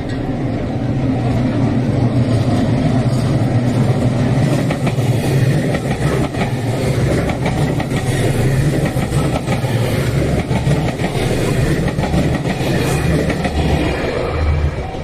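A train passing at close range over a railway level crossing: loud, steady wheel-on-rail noise with a rapid clatter of wheel clicks. It builds over the first couple of seconds and eases off near the end.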